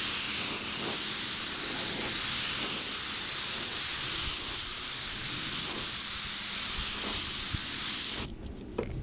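Paint spray gun hissing steadily as it lays clear coat onto a panel, then shutting off abruptly about eight seconds in when the trigger is released.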